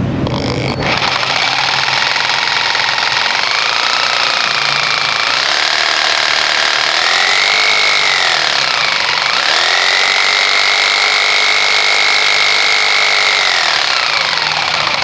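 Ossel P431 450-watt jigsaw switched on about a second in and run with no load, the blade stroking in the air. The motor speed rises and falls several times with the variable-speed trigger, holds high for a few seconds, then slows near the end. It runs with vibration barely felt in the hand.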